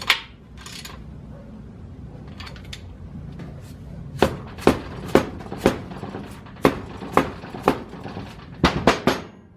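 A mallet tapping the rear main bearing cap of a Ford 390 FE engine block down into the block, seating it flush over the new rear main seal. The blows come about two a second from a few seconds in, after a few lighter knocks.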